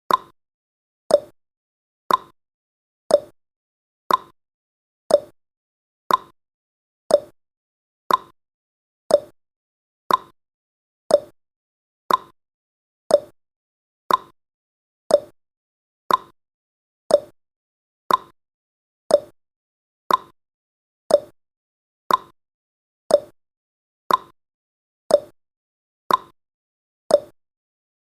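Countdown timer's ticking sound effect: one short, sharp tick every second, evenly spaced and all alike.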